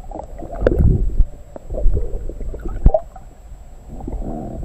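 Muffled water sloshing and gurgling against a half-submerged camera as a smallmouth bass is lowered by hand into the water and released, with several surges and a few sharp knocks; the loudest knock is about three seconds in.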